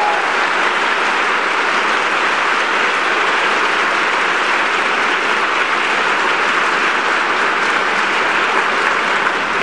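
Theatre audience applauding steadily, the orchestra's last note dying away just as it begins.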